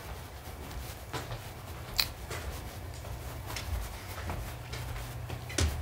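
Quiet room tone with a steady low hum, broken by a few short clicks, the sharpest about two seconds in and another near the end.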